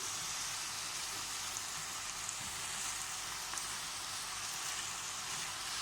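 Small pieces of meat frying with onion, garlic and spices, sizzling steadily in the pan.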